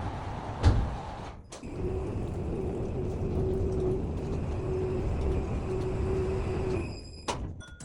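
Underground pit-type mechanical car park machinery running: a clunk about a second in, then a steady motor drive with a faint pulsing whine for about five seconds, stopping near the end with a couple of clicks.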